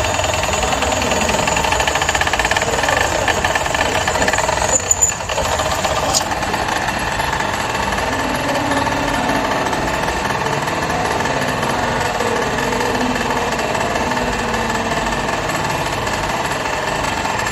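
Electric drill machine running steadily under load, drilling into mild steel plate, with a brief dip about five seconds in and a sharp tick just after.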